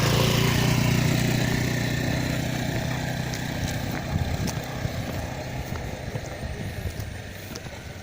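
A motor engine running steadily, loudest at the start and slowly fading over the following seconds, with a few faint clicks toward the end.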